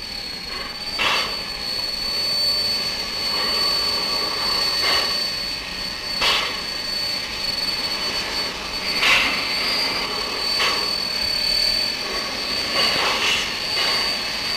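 Steam locomotive venting steam: a steady hiss with about six louder rushes at uneven intervals, over a thin, steady high tone.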